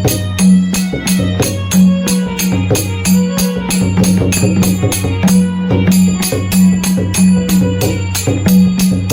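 Traditional Konkan festival percussion played by two drummers: a deep drum beats a rolling pattern under sharp metallic strikes at about four a second, briefly breaking off about five and a half seconds in.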